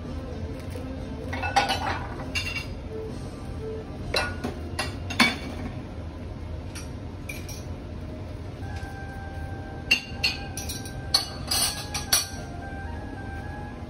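Kitchen clatter: dishes and utensils clinking and knocking a dozen or so times at irregular moments over a steady low hum. Music with held tones comes in about two-thirds of the way through.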